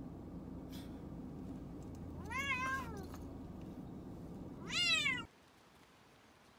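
Domestic cat meowing twice, about two and a half seconds apart; the first call rises and falls, the second is shorter, rising and louder. A low steady hum underneath cuts off abruptly just after the second meow.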